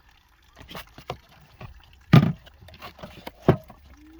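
Soda cans and cardboard boxes being handled and shifted: scattered knocks and clunks, the loudest about two seconds in and again about three and a half seconds in.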